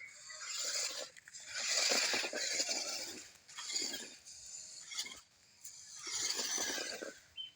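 Electric motor and gears of a 1:10 scale 4WD RC off-road car whirring with a rasp in several bursts of about a second each as the throttle is blipped.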